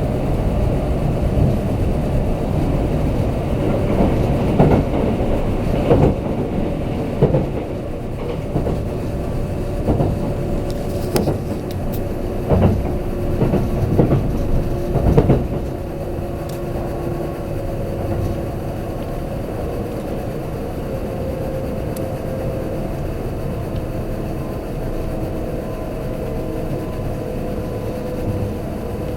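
Kintetsu limited express train running, heard from inside the passenger car: steady rolling noise with a motor whine that sinks slightly in pitch. The wheels knock over rail joints about seven times in the first half, and the running then settles a little quieter.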